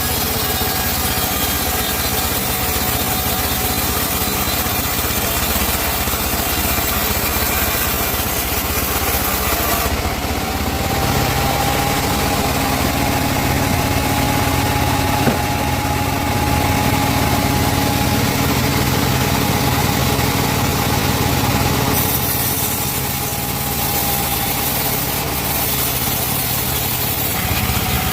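Chainsaw engine running steadily while cutting teak wood. Its note changes about ten seconds in and changes back a little after twenty seconds.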